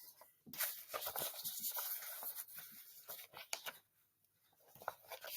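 Faint rustling and scraping with scattered small clicks, falling silent for a moment about four seconds in. There is no clear scream or voice.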